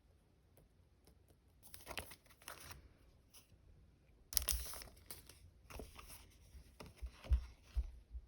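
Stickers and their plastic packaging handled: crinkling and peeling in several bursts, the loudest about four seconds in, then a few soft knocks near the end.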